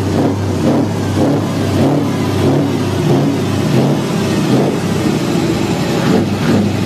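Large truck engine running with repeated revs, its note swelling about once a second.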